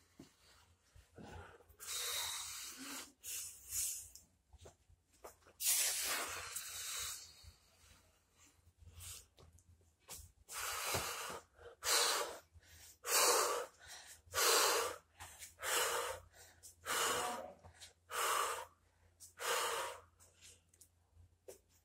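A person breathing hard during vigorous exercise, with loud noisy breaths. The breaths come irregularly at first, then settle about halfway through into a steady rhythm of roughly one breath every second or so.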